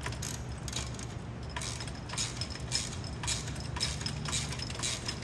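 Light metal clicks, irregular at about two a second, as a Phillips screwdriver and a socket wrench tighten a screw and lock nut on a metal brace.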